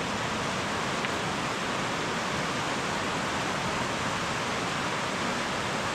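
River waterfall rushing, a steady, unbroken sound of falling water.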